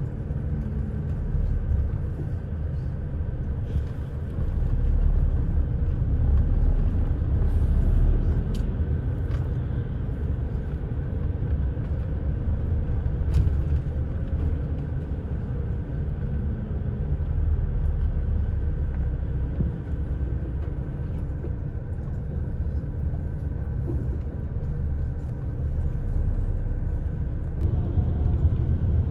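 Steady low rumble of a moving bus heard from inside the cabin: engine and road noise with a faint steady whine and a few light ticks.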